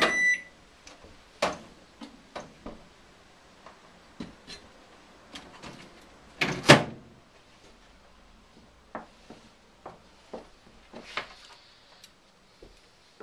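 A microwave oven's beep ends and its door opens, then a string of knocks and light clunks as a ceramic-fibre microwave kiln is lifted out and handled on the bench. The loudest knock comes about six and a half seconds in.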